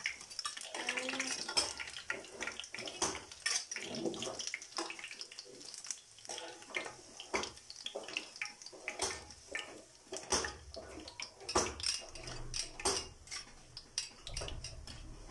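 A metal utensil clinking and scraping against a karahi in irregular taps while pakoras are lifted out of hot oil, over the hiss and crackle of the oil.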